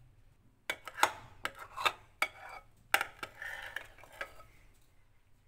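Metal spoon clinking and scraping against a steel bowl while scooping chocolate mousse: a run of sharp, ringing clinks, stopping a little after four seconds in.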